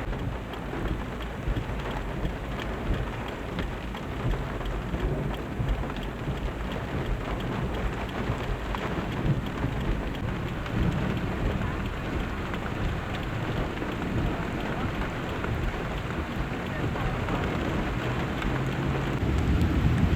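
Torrential rain pouring steadily, with a continuous low rumble underneath.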